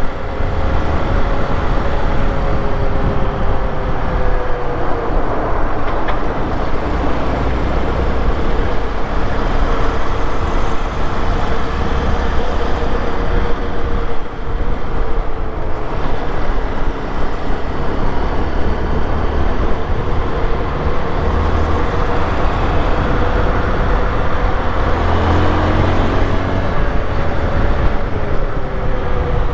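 Honda XRE 190's single-cylinder engine running under way. Its note drops about four seconds in, stays fairly even, and rises again with throttle near the end, over a steady low rumble.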